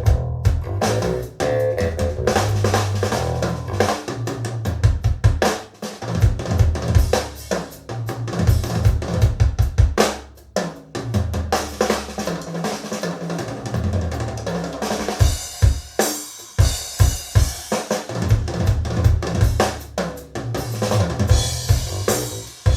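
Drum-led music with a driving kit and a deep bass line, played through Audio Note AN-J-LX loudspeakers driven by an Audio Note I Zero push-pull valve integrated amplifier. The bass drops out briefly twice, leaving just the drums.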